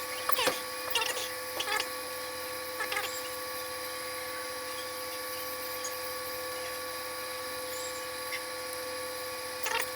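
A steady hum of several fixed tones, with a few light clicks and taps of parts being handled during the first three seconds and again near the end.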